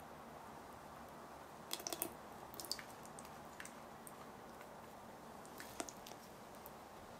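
Melted butter being poured into chocolate madeleine batter in a glass bowl and stirred in with a silicone spatula: quiet, with a few soft wet squishes and light clicks, most of them about two seconds in.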